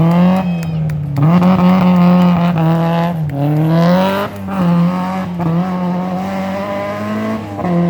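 Rally car engine revving hard under acceleration, its note climbing and stepping down at several gear changes.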